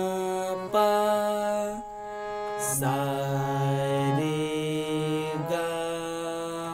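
Harmonium played note by note through an alankar exercise in Asavari thaat: steady reed tones, each held about a second before stepping to the next note. There is a short hiss about two and a half seconds in.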